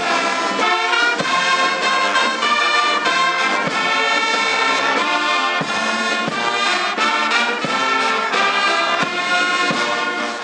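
Brass band music: trumpets and trombones playing together in sustained, steadily moving notes.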